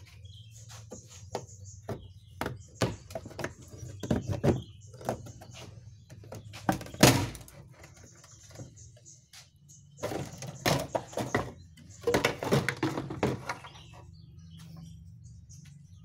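Plastic top control-panel cover of a Sharp twin-tub washing machine being pried and lifted open: a string of plastic clicks, snaps and knocks, the loudest about seven seconds in.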